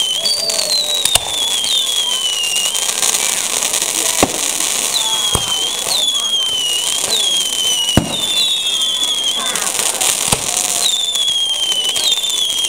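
Fireworks display: about five sharp bangs of bursting shells over a steady crackle of burning stars. Many high whistles dip in pitch and overlap throughout.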